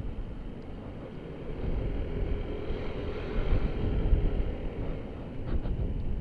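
Kymco Like 200i scooter under way in city traffic: a steady low rumble of engine and wind noise, louder between about two and five seconds in.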